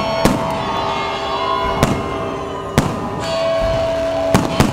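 Aerial fireworks bursting overhead: five sharp bangs, the last two close together near the end, over background music with long held notes.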